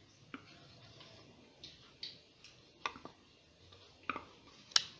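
Light taps and knocks of a wooden spatula against a plastic bowl and the rim of a frying pan as margarine is scraped off into the pan: about six single clicks spread out, the sharpest near the end.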